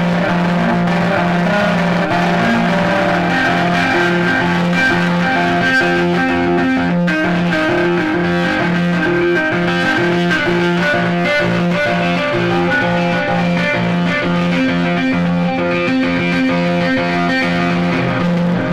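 Heavily distorted Les Paul-style electric guitar playing a riff through an amplifier: a low note repeats in a steady rhythm, with higher notes moving over it.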